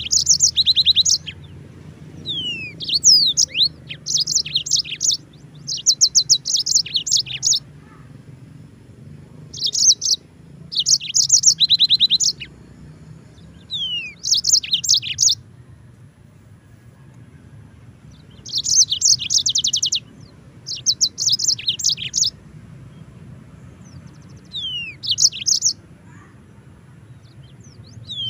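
Yellow-fronted canary singing: short phrases of high, fast trills, many opened by one or two quick falling notes, repeated with pauses of one to several seconds between them.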